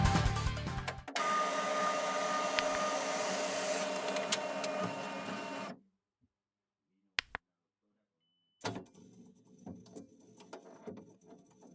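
Background music ends about a second in. A 3D printer then runs with a steady whine from its motors and cuts off suddenly after about five seconds. After a short silence there are faint clicks and small handling sounds.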